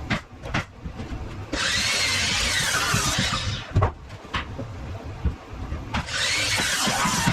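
A power saw cutting 2x8 lumber for rafters, in two cuts of about two seconds each, its whine dipping under load; sharp knocks come before and between the cuts.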